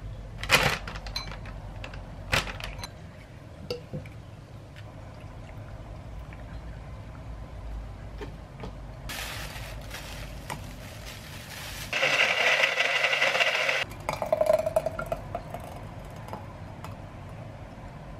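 Kitchen juice-making sounds: hard vegetable pieces knocking into a ceramic bowl twice near the start, plastic wrap crinkling, then a personal blender motor running for about two seconds, starting and stopping abruptly.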